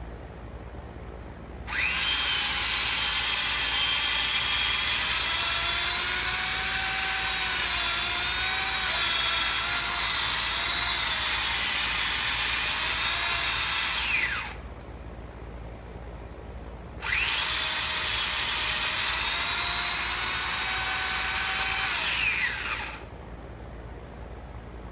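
Electric power saw cutting into a tree trunk. It runs for about thirteen seconds, stops for a couple of seconds, then runs about six seconds more; its whine wavers in pitch as it works through the wood and falls away as it winds down at the end of each run.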